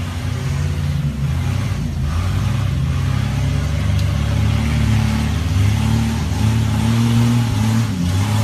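Motor-vehicle engine running with a low, slightly wavering drone that builds a little in loudness, starting and cutting off abruptly like an inserted sound clip.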